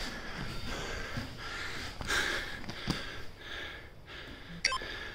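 Sniffing and heavy breathing with soft rustling of grappling on mats, then, from about four and a half seconds in, short electronic beeps about once a second.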